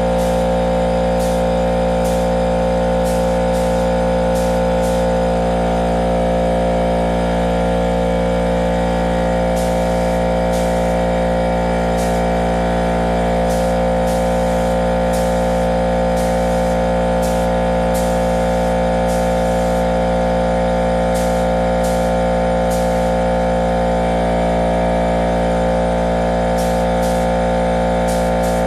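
Electric air compressor running steadily under load, a constant motor-and-pump drone, refilling its tank after spray-gun use.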